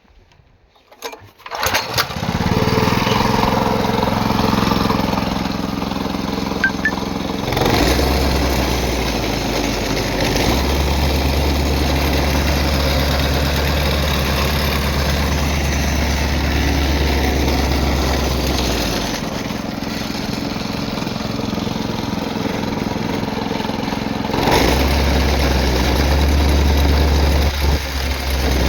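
Small four-stroke engine on a vibratory plate compactor being pull-started after a service with new spark plug and freshly adjusted valves: it catches within about two seconds and idles steadily. About seven seconds in it is throttled up and a deep low drone joins; it drops back to a lower speed near nineteen seconds, then is run up again with the deep drone at about twenty-four seconds, easing off just before the end.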